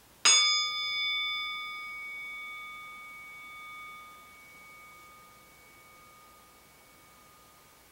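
A meditation bell struck once, ringing with several clear high tones that fade slowly, the strongest two still sounding faintly at the end.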